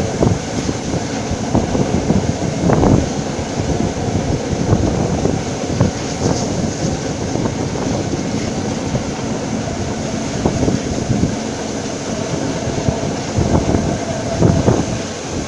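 Passenger train hauled by the Ol49 steam locomotive running steadily along the line, heard from an open carriage window: wheels running over the rails with irregular clicks and knocks, and wind rushing past.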